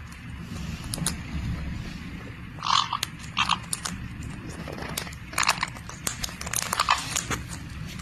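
Caique parrots biting and chewing at a treat-filled snack ball: irregular crunching clicks, with a few louder short bursts a few seconds in.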